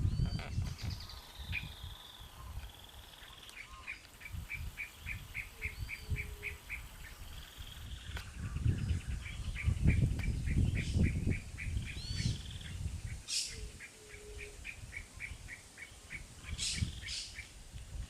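Birds calling outdoors, including runs of short even notes at about six a second and a few higher chirps, over louder irregular low rumbling bursts.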